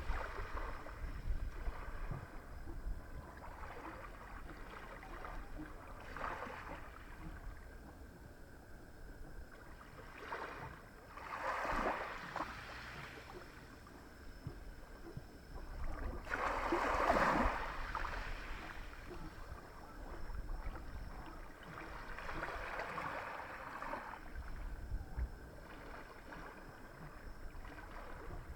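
Small, calm sea waves washing onto the shore in slow surges, the biggest about twelve and seventeen seconds in, over a low rumble.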